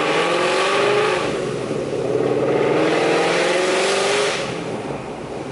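Ford Mustang GT 5.0 V8 through AWE Touring axle-back mufflers, heard from inside the cabin under hard acceleration: the exhaust note rises in pitch, breaks briefly about a second in, climbs again until about four seconds in, then falls away as the throttle is lifted. Loud and higher-pitched when opened up.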